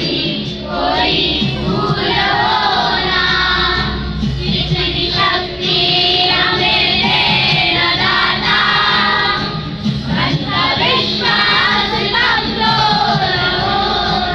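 A group of children singing a prayer together.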